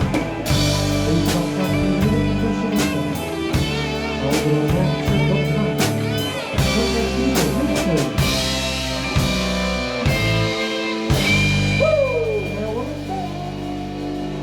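Live rock band playing an instrumental passage of a ballad: drum kit with regular drum and cymbal hits over bass and keyboard, and a lead electric guitar bending notes, with a long high held note about eleven seconds in.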